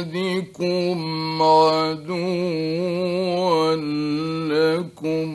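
A man's voice reciting the Quran in long, drawn-out melodic phrases with ornamented, wavering notes. It breaks briefly about half a second, two seconds and five seconds in, and stops just before the end.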